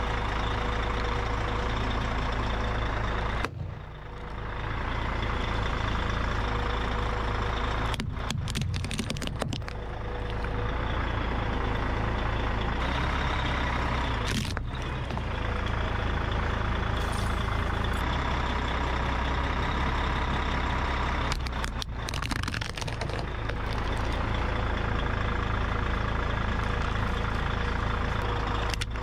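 A 7-ton truck's engine running steadily at low speed, cut off for a moment several times.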